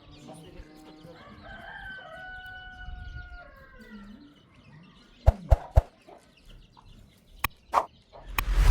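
A rooster crowing once, a long held call that drops in pitch at the end. Later come a few sharp knocks, and a loud burst of noise near the end.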